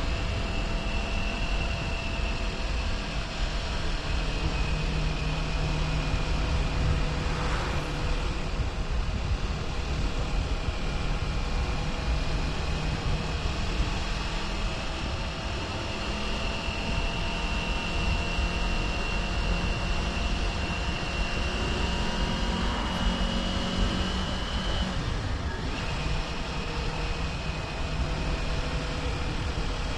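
Kawasaki Ninja 400's parallel-twin engine running at a steady cruise, its note drifting slowly in pitch, with wind noise on the microphone. The engine note dips briefly about 25 seconds in.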